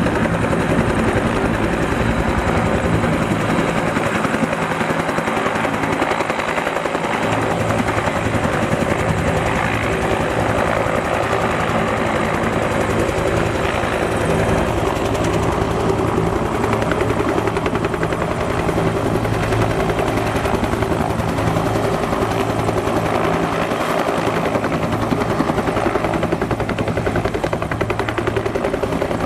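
UH-1J helicopter hovering: its two-blade main rotor beats steadily and rapidly over the steady run of its turbine engine.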